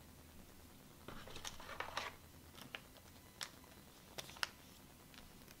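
Trading cards being slid into plastic card sleeves: soft plastic rustling about a second in, then a few sharp ticks.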